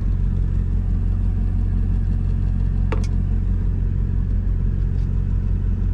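Semi truck's diesel engine idling, a steady low drone heard inside the sleeper cab, with one sharp click about three seconds in.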